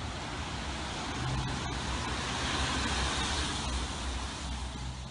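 Road traffic on a wet street: a car passes with a low engine rumble, its tyres hissing on the wet asphalt, the hiss swelling from about two seconds in and easing off near the end.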